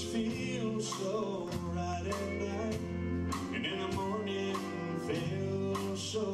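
Live classic country band playing a song, with acoustic guitar, pedal steel guitar, piano and fiddle.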